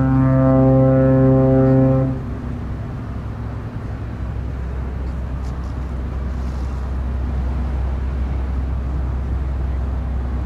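A deep, steady horn-like drone cuts off about two seconds in. A steady low rumble of outdoor noise over open water follows.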